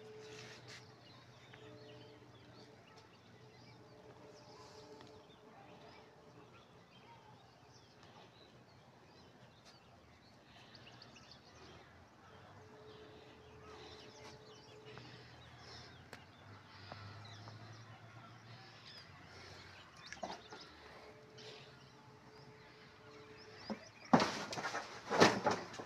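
Faint outdoor background with occasional bird chirps. Near the end, a kitten scrambles onto flattened cardboard sheets, making a brief burst of loud cardboard crackling and rustling.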